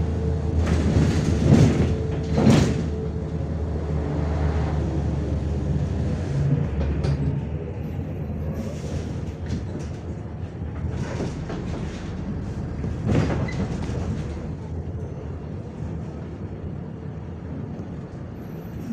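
Cabin noise of a moving MAZ-105 articulated city bus: engine hum with tyre and body noise. The engine note fades after about six seconds and the noise eases off slowly, broken by several brief louder swells.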